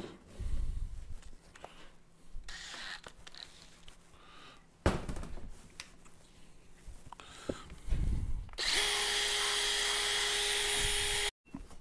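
Cordless drill with a disc attachment running steadily for about three seconds, cleaning a cylinder head's gasket surface, then stopping abruptly. Before it come a few knocks and handling sounds of tools on the bench.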